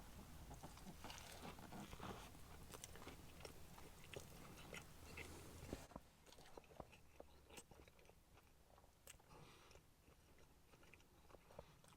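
Faint biting and chewing of a burger stacked with chicken nuggets and fries: soft crunches and small wet mouth clicks, busiest in the first half and thinning out to near silence.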